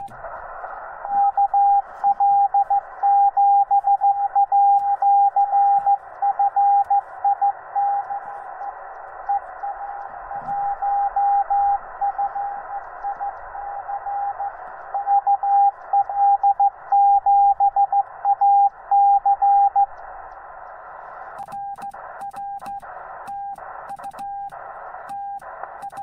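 Morse code (CW) from a Yaesu FT-891 transceiver's speaker: a single-pitch tone keyed on and off over steady receiver hiss for about twenty seconds. After a short pause the keying resumes more quietly near the end, with the hiss cutting out between elements.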